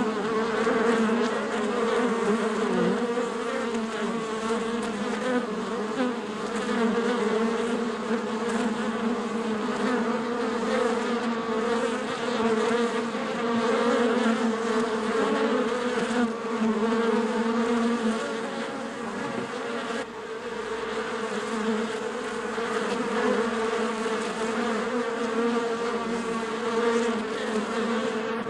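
Beehive: a mass of honeybees buzzing together in a steady, low, dense hum that swells and eases slightly.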